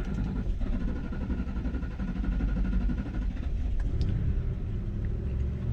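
Starter motor cranking a 2012 Ford Expedition's 5.4-litre V8 for about five and a half seconds without it firing, and the engine catching and running right at the end. This extended cranking is a hard-start fault after the truck has been parked: two fuel injectors leaking down bleed off the fuel-line pressure.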